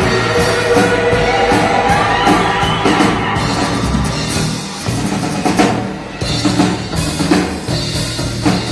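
Loud band music led by a drum kit over sustained pitched instruments. From about five seconds in it breaks into a few separate heavy drum hits.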